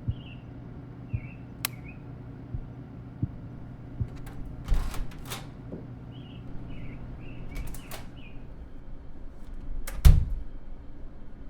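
Layered AI-generated sound-effect mix: a steady low hum under short, high chirps that come in small groups, scattered clicks and knocks, and one loud thump about ten seconds in.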